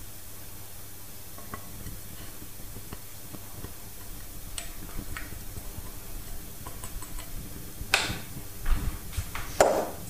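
Spatula scraping and tapping crumbled feta and goat's cheese out of a glass bowl into a mixing bowl, a run of light clicks. Two louder knocks of dishes near the end.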